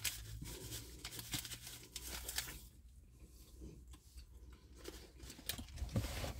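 Someone eating a burger held in a paper wrapper, close up: chewing and the wrapper crinkling in short rustles and clicks, dying down in the middle and picking up again near the end, over a low steady hum.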